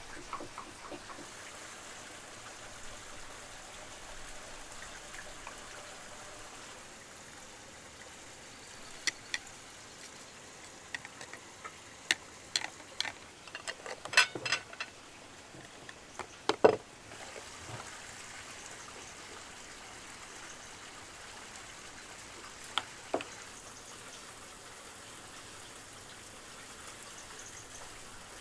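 Metal twist-off lids clicking and clinking on glass jars as they are screwed shut, in a dense run of sharp clicks in the middle with one louder knock just after. A steady hiss like running water underneath.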